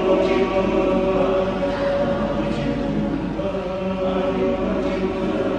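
Men's choir singing in harmony, mostly long held chords.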